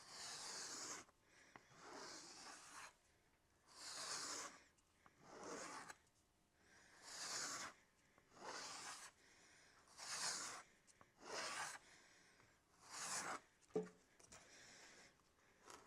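A knife blade drawn in a series of rubbing strokes, about ten in all, each under a second long and roughly a second and a half apart, with a short knock near the end.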